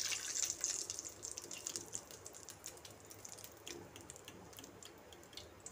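Breaded chicken cutlets deep-frying in hot oil: a hiss full of small, rapid crackles. It fades steadily as the cutlets are lifted out of the oil on a wire strainer.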